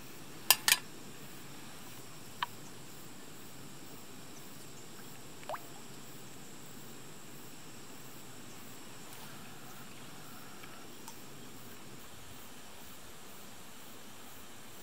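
Small gas canister camp stove burning with a steady hiss. About half a second in come two sharp metal clinks as the stainless steel frying pan is set on the burner, followed by a single ringing ping a couple of seconds later and a faint click near the middle.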